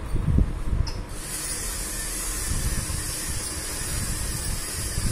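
Small electric motors of a LEGO Mindstorms robot plough running: a steady whirring hiss that starts about a second in as the robot drives off, after a few low knocks from it being handled and set down.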